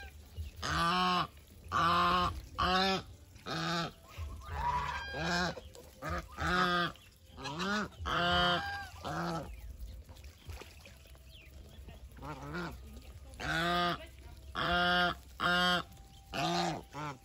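Domestic geese honking over and over, short loud honks about one a second, pausing briefly about two-thirds of the way through before honking again.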